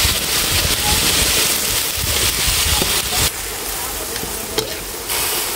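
Water spinach sizzling as it stir-fries in a hot wok. The hiss drops abruptly about three seconds in and goes on more quietly, with one sharp click a little later.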